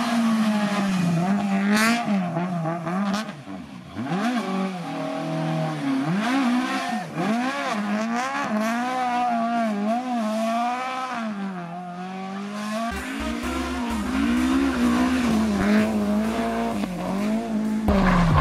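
Rally car engine revving hard, its pitch climbing and dropping over and over as the car accelerates, changes gear and lifts off through corners.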